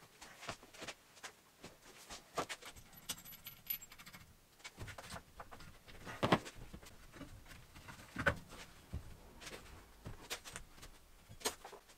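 Hand work fitting a drive belt onto a CVT clutch: irregular light metal clicks and clinks, with two louder knocks about six and eight seconds in.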